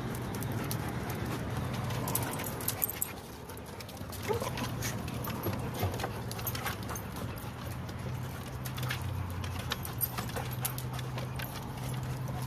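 Several dogs' paws and claws tapping and knocking on a wooden play platform as they move around, irregular clicks over a steady low hum.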